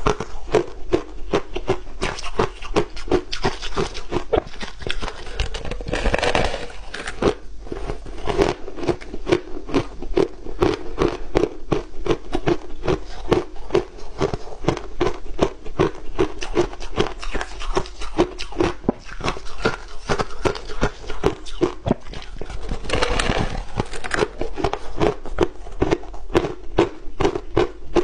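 Close-up crunching of crushed ice being chewed, a quick run of crisp crunches several times a second, with two longer, louder stretches of crunching about a quarter of the way in and again near the end.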